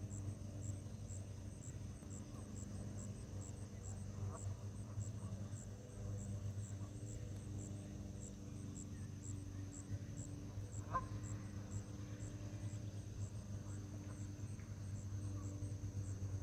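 Insects chirping in a steady high-pitched pulse, about two chirps a second, over a continuous high drone. A steady low hum runs underneath, and there is one brief sharp sound about eleven seconds in.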